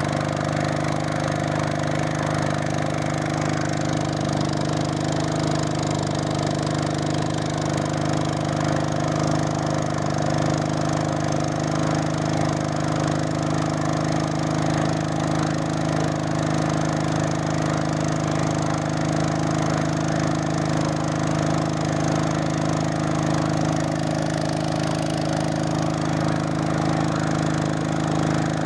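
Honda GX200 single-cylinder four-stroke engine running steadily at one constant speed, driving a fishing boat's propeller through a belt.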